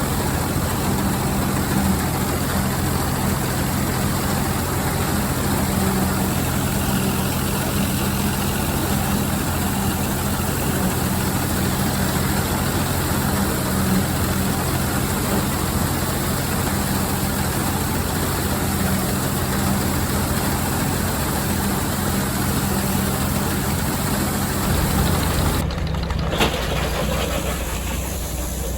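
Tractor engine running steadily while pulling and driving a pull-type combine cutting wheat, with a continuous low hum under the machine noise. The sound changes abruptly a few seconds before the end.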